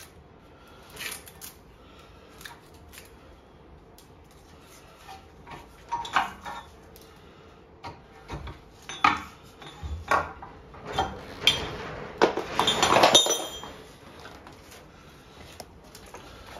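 Metal clinks and ratchet clicks from a threaded bearing press tool being turned to draw a new rear wheel bearing into a VW Transporter's hub. The clicks are sparse at first, then come thicker, with the loudest run of clinks about twelve to thirteen seconds in.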